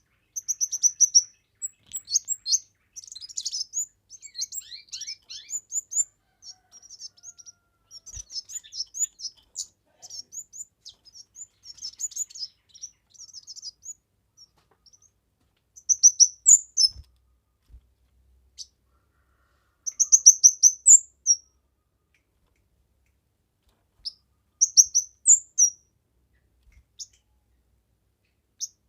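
Kemade songbird singing in rapid, high twittering chirps and trills, continuous for about the first 14 seconds, then in shorter separate phrases with gaps between them.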